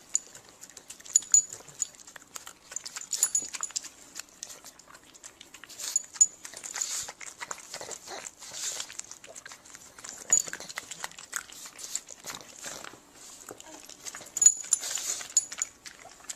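Pug close up, making short breathy snuffles and snorts, with the metal tag on its collar clinking now and then.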